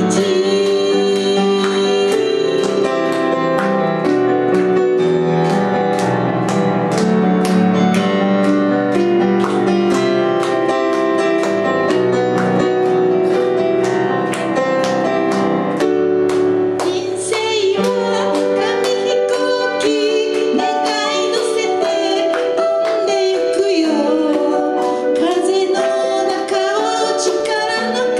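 Digital piano playing an instrumental interlude over a steady beat. About halfway through, a woman's singing voice comes back in over the piano accompaniment.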